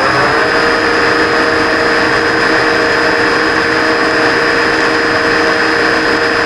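Monarch 10EE lathe's AC motor running on a Huanyang variable frequency drive. Its hum rises in pitch as it comes up to speed in the first half second, then holds steady. Over it sits a steady high-pitched whine from the drive's carrier frequency, set at 5.0, below the factory setting of 8, which is what makes the motor noisy.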